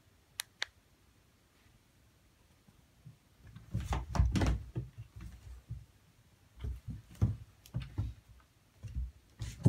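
Two cats scuffling in an empty bathtub: dull thumps and scrabbling of paws and bodies against the tub, loudest about four seconds in and coming again in bouts near the end. Two sharp clicks come near the start.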